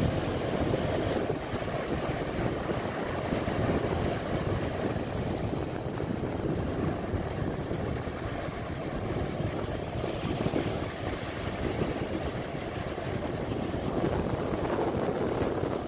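Sea surf: small waves breaking and washing up a shallow sandy beach, a steady rushing that swells and eases every few seconds, with wind on the microphone.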